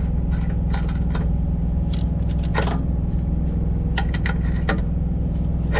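Steady low drone of an idling diesel truck engine, with a scattering of light metallic clicks and scrapes from parts and tools being handled.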